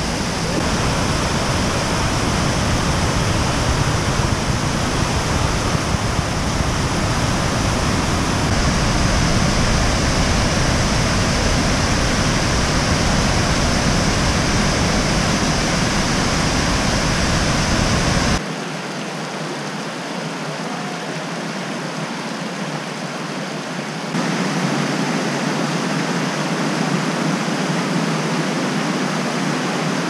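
Waterfalls of the Krka River, white water cascading over mossy rock steps, with a steady rushing roar. About eighteen seconds in, the sound turns thinner and a little quieter with the deep rumble gone, then grows louder again some six seconds later.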